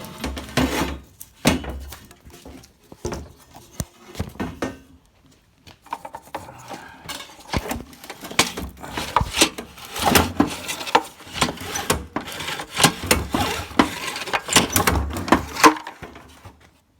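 Briggs & Stratton Quantum XE engine being turned over by hand on its recoil starter: repeated rasping pulls with clicks and clatter, the engine turning but not starting. It shows that the engine is not seized.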